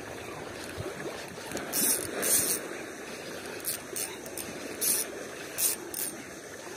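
Spinning reel and line worked in short, irregular hissy bursts during a lure retrieve, over a steady wash of lapping shallow seawater.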